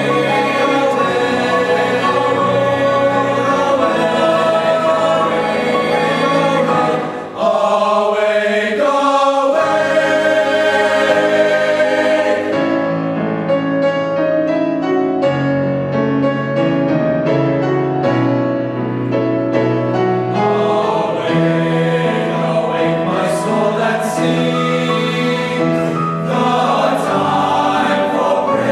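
A choir of teenage boys and young men singing a choral anthem in harmony, with a brief break for breath about seven seconds in and a softer, thinner stretch in the middle.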